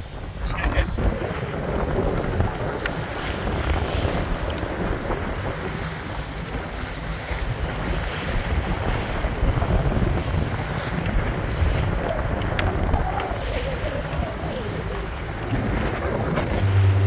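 Small boat under way on open water: wind buffeting the microphone over a steady low rumble and the rush of water along the hull.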